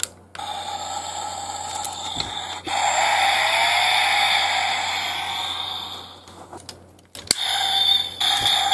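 Transformers MB-11 Optimus Prime toy playing its electronic sound effects through its small built-in speaker, thin with little bass, with a gliding tone a few seconds in. Sharp clicks at the start, around a third of the way in and near three quarters set off or break up the effects.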